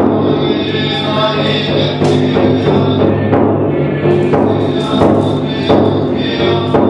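Buddhist monks chanting a sutra together in low voices, with a large taiko drum struck in a steady beat about once a second.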